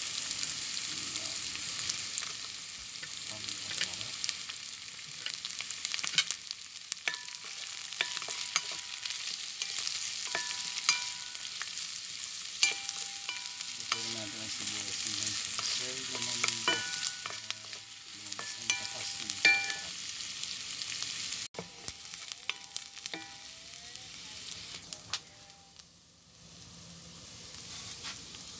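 Sliced onion and garlic sizzling in hot oil in a pan. A wooden spatula stirs them, with frequent clicks and scrapes against the pan.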